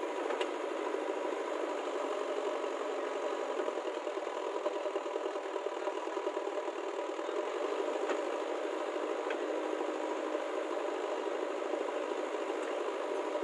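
Diesel engine of a JCB backhoe loader running steadily under load as it digs and swings its bucket, mixed with a tractor's engine idling, with a few faint clicks.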